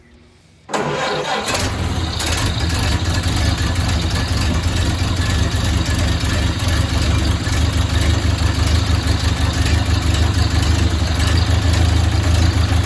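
A 1929 Ford Model A's four-cylinder flathead engine starting under a second in and then running steadily at idle. It is the freshly rebuilt engine's first run in more than 40 years.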